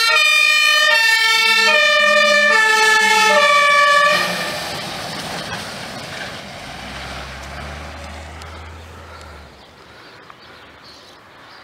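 German fire service turntable ladder truck sounding its two-tone siren, alternating between two pitches about every second as it passes. About four seconds in the siren stops abruptly, leaving the noise of the truck, which fades as it drives away on the wet road.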